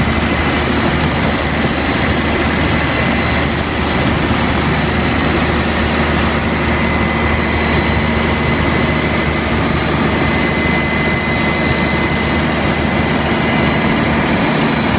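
Caterpillar 3456 inline-six diesel generator set running steadily at constant speed, a deep even drone with a steady high whine over it.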